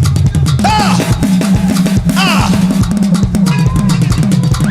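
Fast, upbeat African gospel praise band music: a drum kit playing a rapid, driving beat with kick and snare over a steady bass line.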